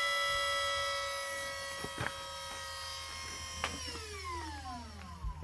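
Volvo electric power steering pump running with a steady electric whine. About two-thirds of the way in it winds down, its pitch falling steadily as it slows.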